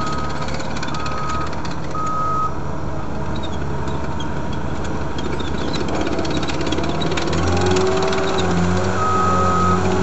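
Cat 247B compact track loader's diesel engine running as the machine manoeuvres, with its reversing alarm beeping about once a second for the first couple of seconds and again near the end. About seven and a half seconds in the engine picks up, running louder and slightly higher.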